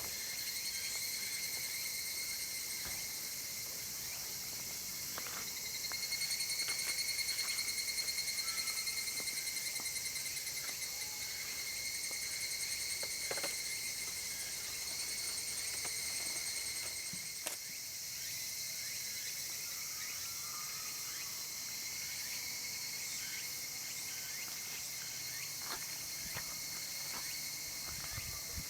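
Insects singing in a steady, high, finely pulsing drone, louder from about six to ten seconds in, with a few faint clicks.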